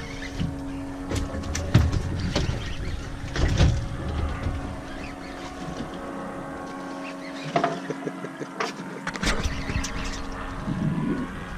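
A boat's engine running steadily with a constant hum, over which come repeated knocks and clatters on deck, the loudest about two and three and a half seconds in.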